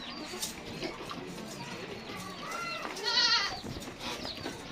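Goats bleating: one loud, wavering bleat about three seconds in, with fainter bleats just before and after it.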